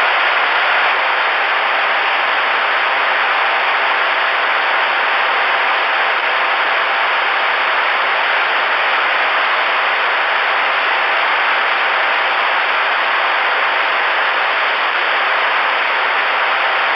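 Steady, loud static hiss from the Voyage VR-9000 10-meter radio's speaker: open receiver noise with no voice on the channel.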